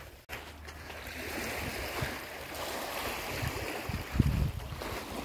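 Small waves of the calm Baltic Sea washing onto the beach, a steady wash, with wind buffeting the microphone in low rumbling gusts, the strongest about four seconds in.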